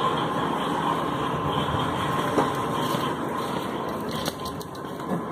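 Wire shopping cart rolling along a hard store floor, its wheels making a steady rolling noise.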